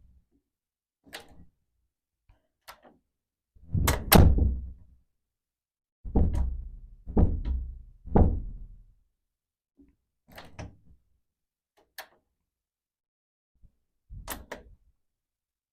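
Heavy wood door on a metal frame being shut firmly, not slammed, several times, with clicks from its metal knob and latch between. The loudest close, a deep thud, comes about four seconds in, followed by three lower thuds between about six and nine seconds.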